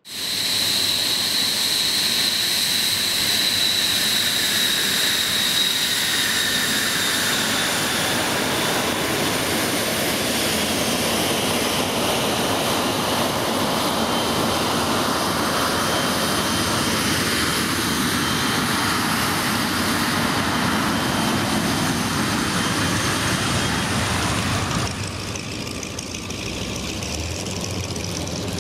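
T-2 Buckeye jet trainer taxiing: its jet engines give a steady, loud rushing noise with a high whine that sinks slightly in pitch over the first several seconds. The sound drops abruptly a little near the end.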